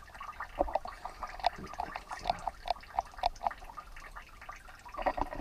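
Water dripping into a concrete sewage pit: short, irregular plinks, about two or three a second, echoing in the pit.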